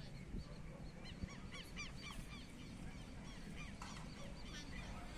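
Birds chirping: many short, overlapping calls, over a steady low rumble.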